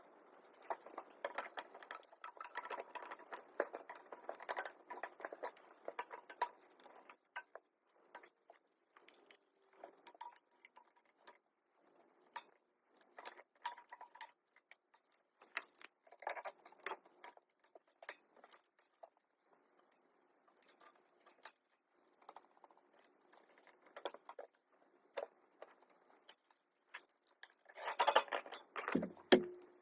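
Hand tools and metal parts clicking, clinking and rattling in irregular bursts. The bursts are densest in the first several seconds and again near the end.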